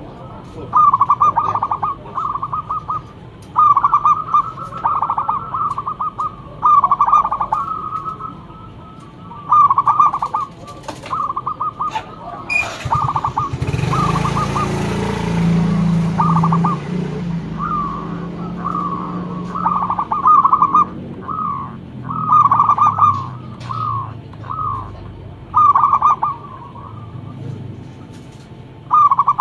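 Zebra dove (perkutut) cooing: short rolling coo phrases repeated every couple of seconds. About halfway through, a rushing noise with a low hum swells up for a few seconds and then fades.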